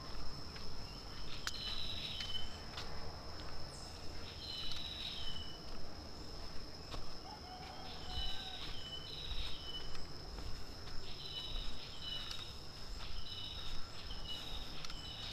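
Steady high-pitched insect trill from the forest, with a bird repeating a short two-note call that drops in pitch, again and again and more often in the second half.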